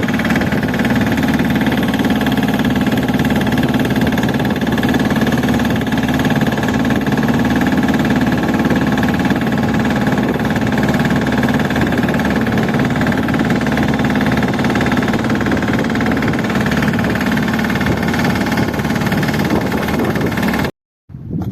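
Boat engine running steadily at a constant pitch, a loud continuous drone that cuts off abruptly near the end.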